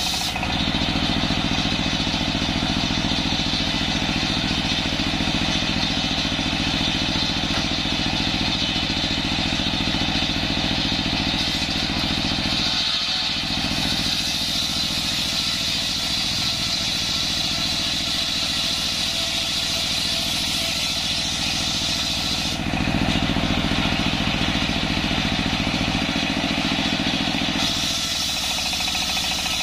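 Diesel engine driving a large circular saw blade, running steadily under load as the blade rips a coconut log lengthwise into planks, with a high whine from the spinning blade over the engine's low drone.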